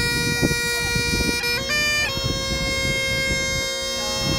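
Great Highland bagpipes playing: steady drones under a chanter melody of long held notes, broken by quick grace notes as the tune changes pitch about one and a half and two seconds in.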